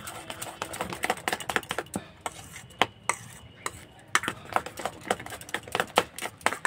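A metal spoon stirring a wet mix of grated cauliflower and raw egg in a stainless steel bowl: quick, irregular clicks and scrapes against the bowl, thinning out for a moment in the middle.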